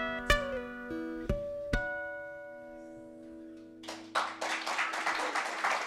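Acoustic guitar playing the closing notes of a song: three struck chords or notes in the first two seconds, left ringing and fading away. About four seconds in, an audience starts clapping.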